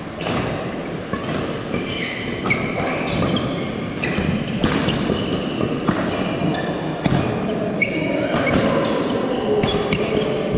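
Badminton rally: rackets striking the shuttlecock in sharp cracks about once a second, with short high squeaks of court shoes on the floor mat between them.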